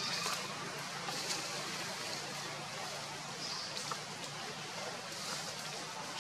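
Steady outdoor background noise with a low hum under it and a few brief, faint high-pitched chirps.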